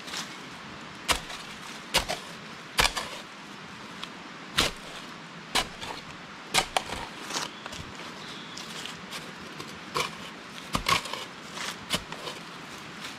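Digging a small grave in the ground: a digging tool strikes the soil with about a dozen sharp blows at uneven intervals, roughly one a second.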